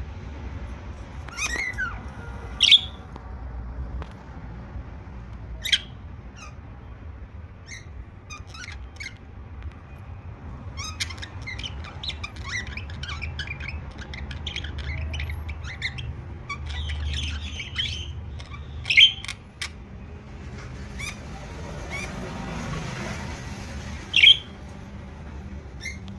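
Pet budgerigars chirping and squawking in many short, scattered calls, with three louder sharp calls about three seconds in, near the middle-late part, and near the end.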